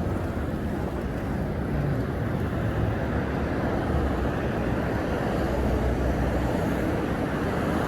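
Steady street traffic rumble with no distinct single event.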